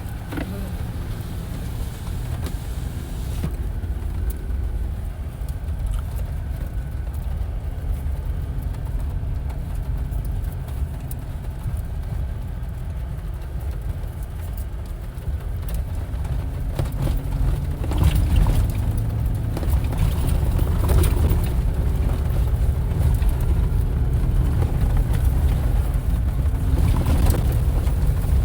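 Off-road vehicle driving a rough dirt trail, heard from inside the cab: a steady low rumble of engine and tyres that grows louder about eighteen seconds in, with scattered knocks and rattles.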